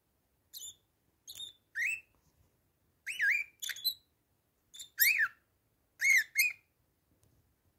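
Bourke's parakeet calling: about eight short, sweet whistled chirps, several bending up and down in pitch, some coming in quick pairs, with short pauses between.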